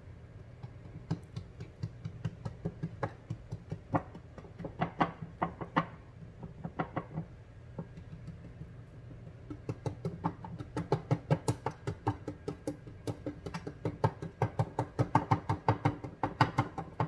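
A fork docking a pie crust in a baking dish: its tines prick through the dough and tap the dish bottom in quick, irregular runs of clicks, with a lull about halfway and the densest tapping in the second half. A steady low hum runs underneath.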